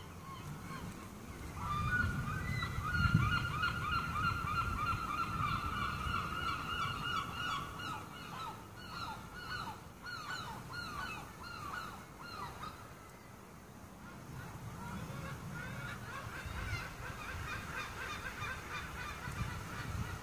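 A flock of geese honking, many calls overlapping. The calls start about two seconds in, die away a little past halfway, then build up again.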